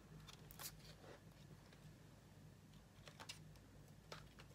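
Near silence over a low steady hum, with a few faint clicks and rustles from a CD case and its booklet being handled.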